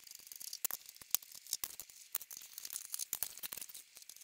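A faint, irregular run of small clicks and light scraping from a screwdriver working the screws on a Yamaha DX7 synthesizer's case.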